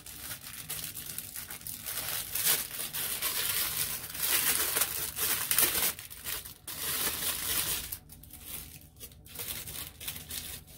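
Clear plastic packaging bag crinkling and rustling as it is handled and pulled open by hand. The crinkling is dense for most of the time and dies down near the end.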